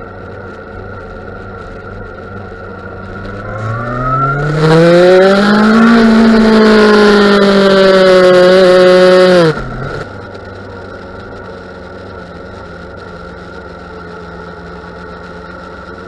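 Yamaha FZ1 inline-four engine idling, then revved up over about two seconds and held high for a few seconds with a slight waver in pitch near the end. About halfway through, the throttle snaps shut and it falls back to a steady idle. The owner is chasing an intermittent misfire or stutter at certain revs, which he puts down to either the throttle position sensor or an ignition coil.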